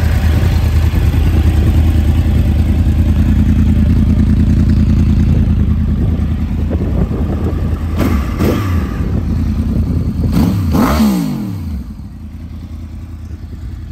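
2013 Yamaha YZF-R1's crossplane inline-four running through a Two Brothers aftermarket exhaust. It idles steadily, is blipped twice about eight seconds in, then revved higher twice, each time falling back to a quieter idle.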